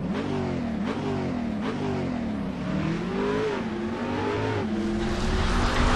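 An engine revving in a series of blips, its pitch rising and falling several times, then holding a steady pitch and growing louder near the end.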